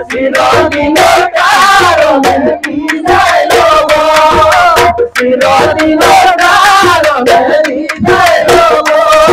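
A group of men singing a Bihu folk song together over loud, fast drumming.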